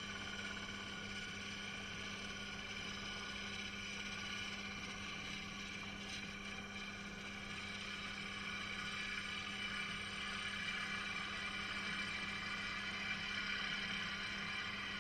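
Record Power DML305 wood lathe running steadily while a bowl gouge cuts the inside of a spinning cherry wood bowl: a steady motor hum under the hiss of the cut, which grows a little louder about nine seconds in.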